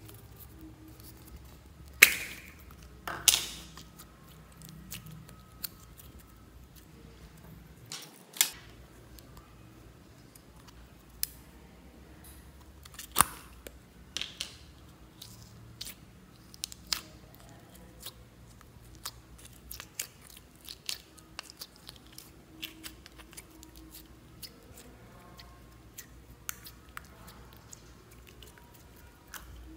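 Plastic slime tub being opened, with two sharp sounds about 2 and 3 seconds in as the lid comes off. After that, clear jelly slime is handled and squeezed in the hand, making scattered small sticky clicks and crackles.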